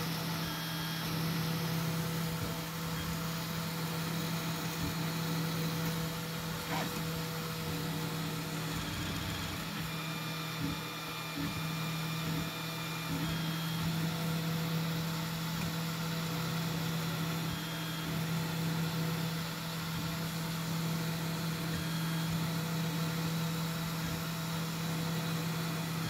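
3D printer running a print: a steady motor and fan hum, with short high whines from the stepper motors coming and going as the print head moves.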